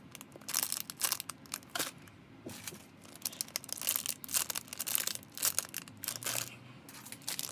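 Plastic packaging of a squishy toy crinkling and crackling in irregular bursts as it is handled close to the microphone.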